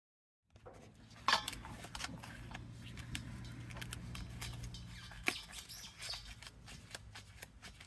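Hands working a propane tank's valve and regulator hose fitting: many small clicks and scrapes, with a sharp click about a second in and another about five seconds in, over a low steady hum that fades after the second click.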